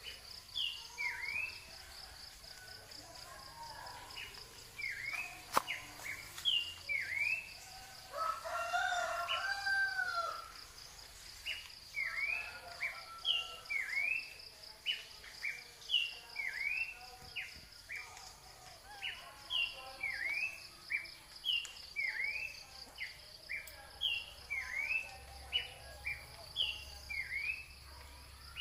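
Short, high chirping calls repeated in runs of about two a second, over a steady insect trill. A rooster crows once, about eight seconds in.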